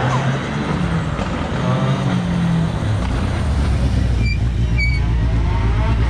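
Ford Fiesta ST rallycross car engine blipping as the car rolls up to the start grid, then idling close by with a deep, pulsing rumble from about three seconds in. Two short high beeps sound about four and five seconds in.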